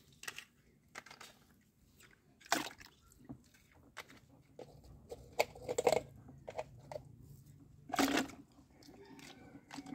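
Plastic toy vehicles being picked up and handled on brick paving: scattered light clicks and knocks, with a louder rustling burst near the end.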